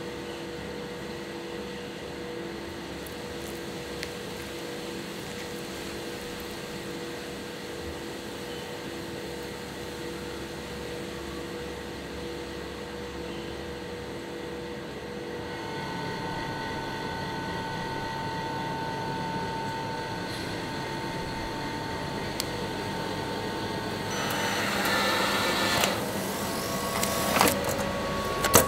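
Steady machine hum from a hot-meal vending machine. About halfway a higher, louder hum joins it, and near the end come several knocks and a clatter.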